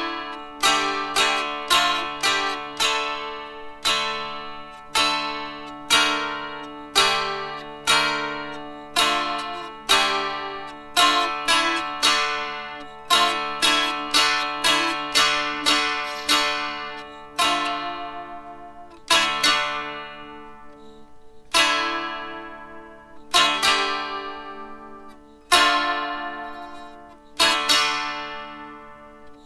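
Fretted dulcimer, a drone zither, playing a medieval-style tune: plucked melody notes that ring and die away over steadily sounding drone strings. The notes come further apart in the second half.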